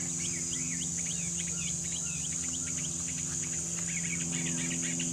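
Steady high-pitched drone of insects, with many short bird chirps throughout, over a low steady hum.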